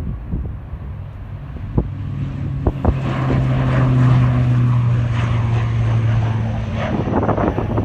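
Airliner engines running with a steady low drone that swells through the middle. Wind gusts buffet the microphone near the end, with a few sharp knocks early on.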